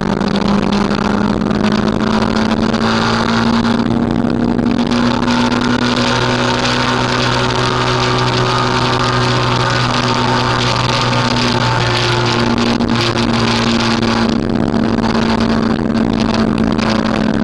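Motorcycle engine running at a steady cruising speed on a motorway, a constant engine note under loud rushing wind noise on the microphone.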